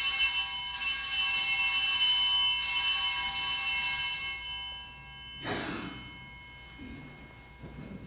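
Altar bells (sanctus bells) being shaken at the elevation of the chalice: a bright cluster of high, ringing tones that jingles on and fades out about four and a half seconds in. A short, soft rustling noise follows about a second later.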